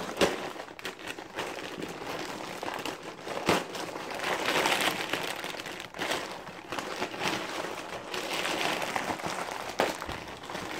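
Plastic shipping bag crinkling and rustling as it is handled and pulled open, with scattered crackles and a sharper snap about three and a half seconds in.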